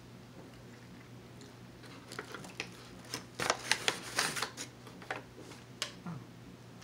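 Thin plastic water bottle crackling and crinkling while being drunk from, a run of sharp crackles starting about two seconds in, loudest around the middle and dying away near the end.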